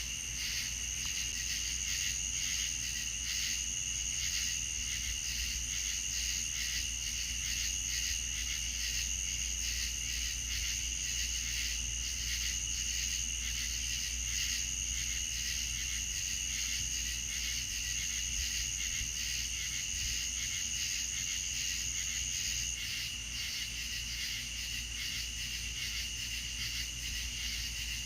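Night-time insect chorus of crickets trilling steadily, with one high continuous trill that stops about two-thirds of the way through while a lower, pulsing chorus carries on over a low steady rumble.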